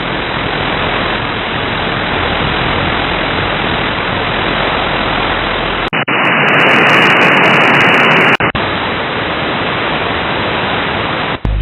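Steady radio static from an RTL-SDR receiver demodulating AM in SDR Sharp with no station tuned in. About six seconds in, it switches for about two and a half seconds to a louder, brighter hiss, then returns to the earlier static.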